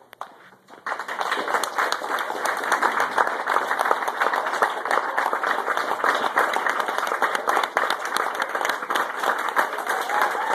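Audience applauding: after a near-silent blackout, dense clapping from many hands breaks out about a second in and carries on steadily.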